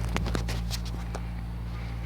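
A few light clicks and taps of handling noise within the first second or so, over a steady low electrical hum.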